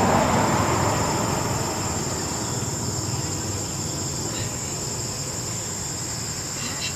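Steady high-pitched drone of insects. A broad rushing noise underneath fades over the first two seconds.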